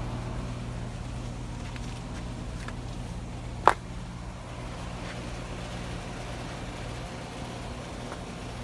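Steady low machine hum with one sharp click a little past the middle.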